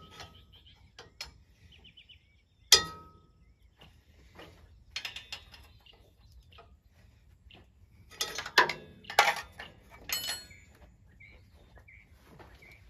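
Hand tools clanking and clicking on metal while belts are fitted to a tractor's fan and generator pulleys: one sharp ringing clank about three seconds in, then bursts of rattling clicks around five seconds and from eight to ten seconds in. Birds chirp faintly in the background.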